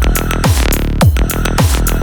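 Electronic dance music with heavy bass kick drums about twice a second, and a noise sweep about half a second in.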